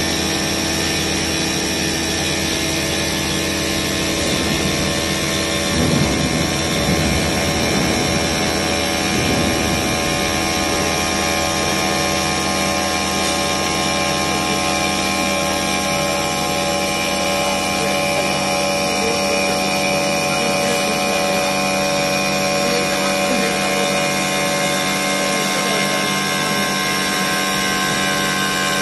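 CNC stone machine's spindle running steadily, its water-cooled bit milling an oval cutout in a stone slab: a constant machine hum with several held tones over grinding noise.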